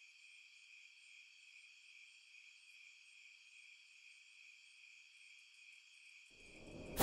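Faint, steady chorus of crickets chirping as night-time ambience. Near the end a deep swell rises in under it.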